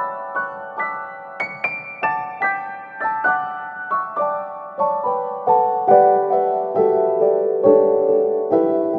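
Background piano music: a steady run of single struck notes, about two or three a second, each ringing and fading.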